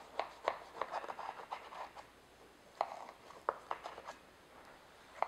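Sharp knife cutting down through a baked pie's crisp pastry crust: a run of light crackles and scrapes, with a couple of sharper clicks about three seconds in.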